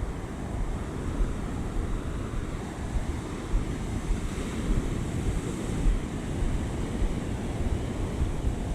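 Ocean surf washing onto the beach, with wind buffeting the microphone in gusts.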